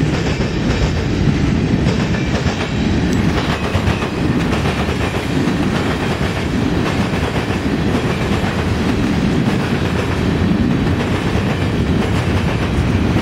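Freight cars of a long mixed freight train rolling past, their steel wheels on the rails making a loud, steady, deep noise.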